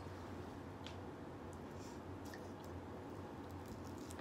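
Faint wet squishing and a few soft clicks of hands handling boiled crab legs, over a low steady hum.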